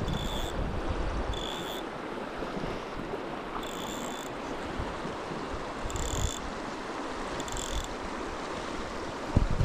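River water rushing steadily, with some wind buffeting the microphone. Five short high-pitched notes sound a second or two apart, and a low thump comes near the end.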